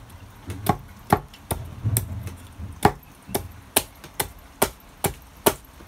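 Small carving axe chopping into the wooden kuksa blank, a quick run of sharp strikes about two a second, trimming waste wood from the sides of the handle.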